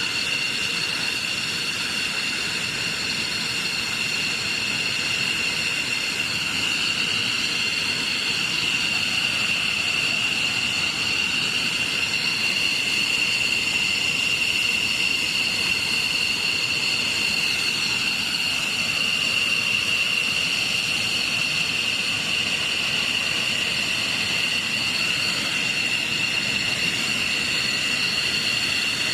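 Jet engine running with a steady high whine over a rumble; the pitch drifts slightly a few times.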